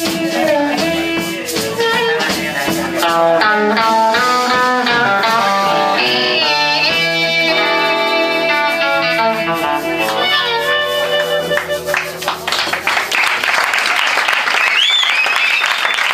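Live blues band with harmonica, electric guitar, bass guitar and drums playing the closing bars of a song, finishing on a held chord that fades out about ten seconds in. Audience applause follows, with a few whistles near the end.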